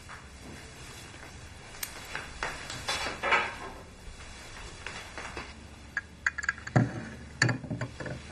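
Light clinks and knocks of a glass cup, saucer and small objects being handled on a bedside table, in a quick cluster from about six seconds in, after a few softer knocks and rustles.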